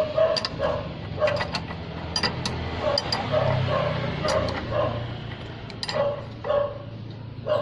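A dog barking repeatedly, short yaps about once or twice a second, over sharp metal clicks of a wrench working the nut of a tie-rod end.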